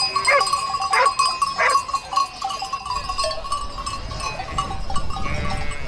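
A large flock of domestic sheep bleating, several calls overlapping.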